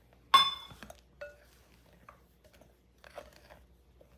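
A metal fork clinks sharply against a glass mixing bowl about a third of a second in, with a fainter clink about a second in. It then scrapes and crunches through oat flour and mashed banana in soft, uneven strokes.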